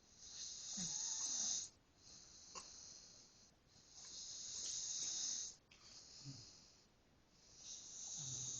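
A man snoring in his sleep: long, rasping breaths in a slow cycle about every three to four seconds, some with a low snoring rattle, alternating with quieter breaths.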